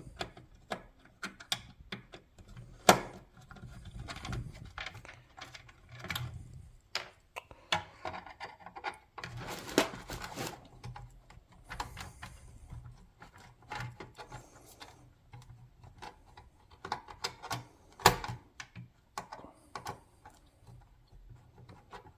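Hand screwdriver backing out the screws that hold a garage door opener's control board: irregular small clicks, ticks and rubbing scrapes, with a few sharper knocks.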